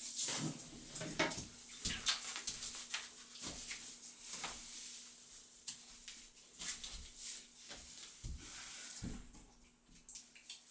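Several small kittens eating wet food from a plate: a run of quick irregular wet smacks and chewing clicks.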